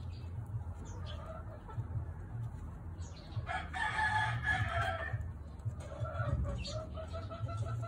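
A rooster crows once, a long call about three seconds in, followed near the end by a run of short clucks, over a low steady hum.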